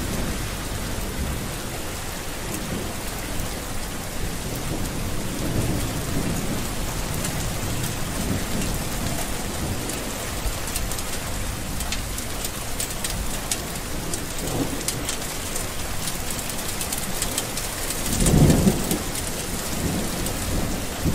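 Steady rain with sharp drop ticks, and low rumbles of thunder every few seconds; the loudest rumble comes near the end.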